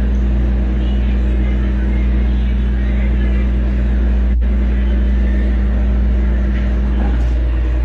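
Steady low droning hum with a hiss over it; a tone within it drops out about seven seconds in.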